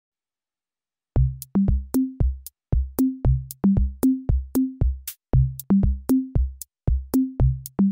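Background music: an electronic drum-machine beat, with deep kick drums, low pitched drum notes stepping between a few pitches, and light high clicks, starting about a second in after silence.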